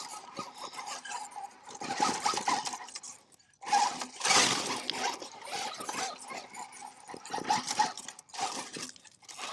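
An Axial SCX6 RC crawler's electric motor and drivetrain whining in short bursts of throttle, five or six surges with brief lulls between them.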